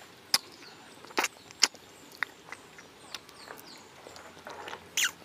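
Close-miked wet mouth smacks and chewing of soft durian flesh: a handful of sharp, irregular smacks, loudest in the first two seconds, and another near the end. Faint bird chirps sound behind.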